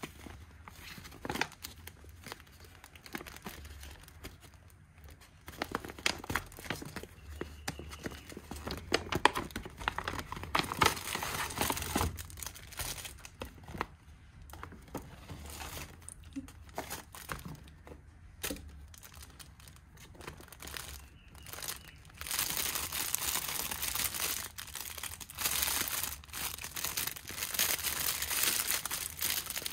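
Clear plastic packaging bag crinkling and rustling as it is handled and opened, with irregular crackles. It turns louder and denser about two-thirds of the way through.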